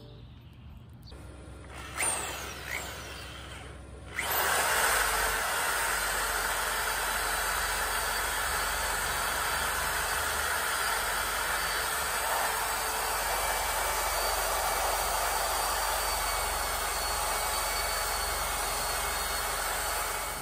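Electric drill spinning a wire brush against a rusty old axe head held in a vise, scouring off the rust: a steady whir and scratch that starts about four seconds in.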